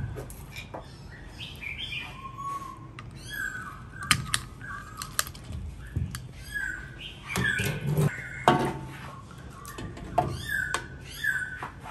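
Small birds chirping over and over, short repeated calls with quick falling notes, along with sharp clicks, knocks and scrapes of a metal tool against a large conch shell. The loudest knocks come about four, five and eight seconds in.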